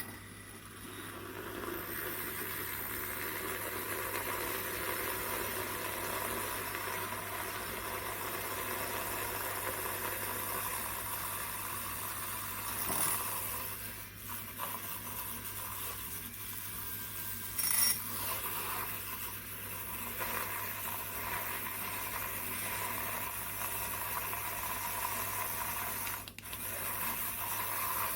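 Has & Fas handheld rechargeable milk frother running steadily, its small motor humming as the whisk spins in milk with a hissing, frothing noise. Two brief knocks partway through.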